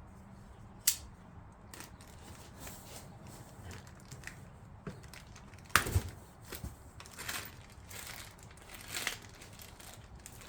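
Packaging being pulled off a heavy truck bed step: rustling, with scattered sharp clicks and one loud knock about six seconds in.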